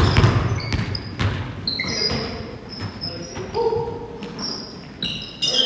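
Basketball game in a gym: the ball thuds on the hardwood floor and sneakers squeak in short high chirps, all echoing in the large hall. The loudest thuds come right at the start.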